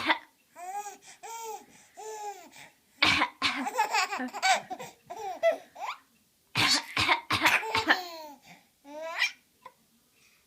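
A baby laughing in short bursts, the first three high, arched laughs about half a second apart, with loud coughs in between.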